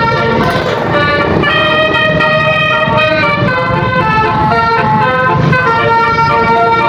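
Telolet multi-tone bus horn playing a melody, several horn tones sounding together and stepping to new notes about every half second, with a low rumble underneath.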